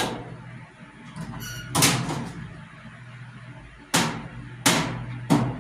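Hinged sheet-steel lid of a parts washer being swung shut, clanking four times against the tank.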